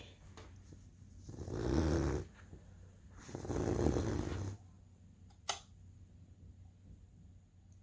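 Two long, heavy breath-like rushes of air close to the microphone, each about a second long, followed a second later by a single sharp click.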